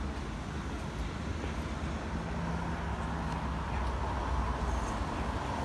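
Road traffic: a steady low engine rumble with a hiss that builds in the second half, like a vehicle passing.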